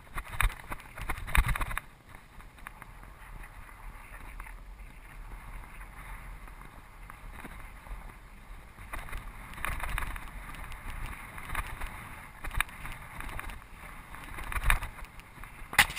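Wind rushing over the microphone of a camera mounted on a moving bicycle, with rattling knocks from bumps in the road in clusters near the start and again several times in the second half.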